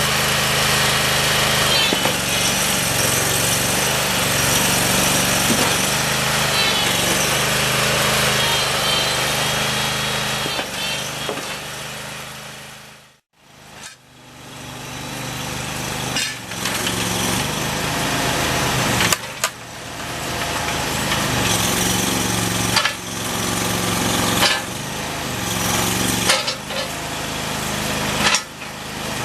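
Engine of a Terramite T5C compact backhoe loader running steadily. The sound cuts out briefly about halfway through, then the machine runs on less evenly, with several sharp knocks as it works.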